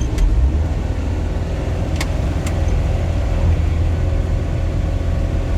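Self-propelled swather running with the header engaged: a steady low drone with a few sharp clicks around two seconds in. The sickle knife is plugged with green straw and stays stuck.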